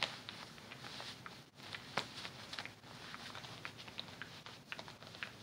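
Rustling of a buckle wrap's fabric and straps being pulled and handled, with scattered small clicks and ticks.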